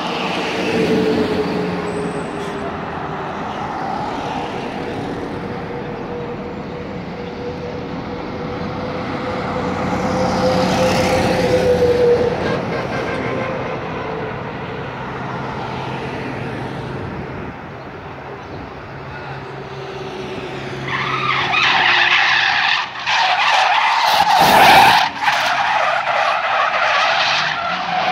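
Car engine revving, its note rising and falling, then loud tyre screeching as the car skids through the last quarter.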